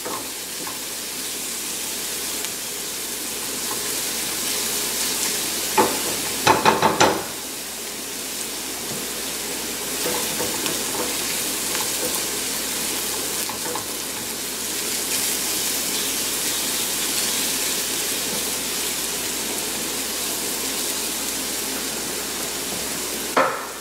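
Finely chopped onion and garlic sautéing in oil in a small nonstick frying pan over a gas flame: a steady sizzle, with a silicone spatula stirring and scraping through the mix. A few brief louder sounds come about six to seven seconds in.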